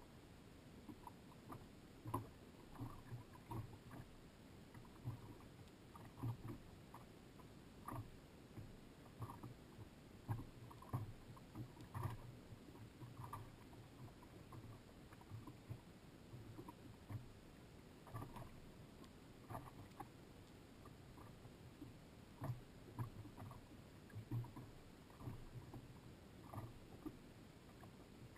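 Small waves lapping and slapping irregularly against the hull of a small fibreglass fishing boat, soft knocks a few times a second over a faint background.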